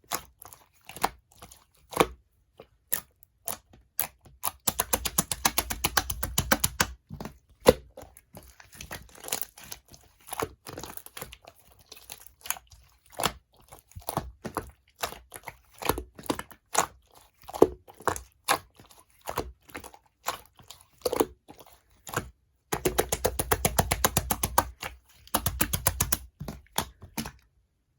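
Slime being squished, pressed and stretched by hand, giving sharp pops and crackles. Twice it breaks into a run of rapid clicking.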